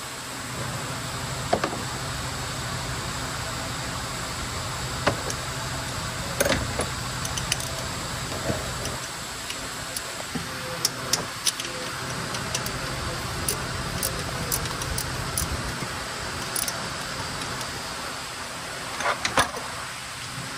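Irregular metallic clinks and taps of hand tools and bolts against engine parts during removal of the starter, over a steady low hum from the workshop.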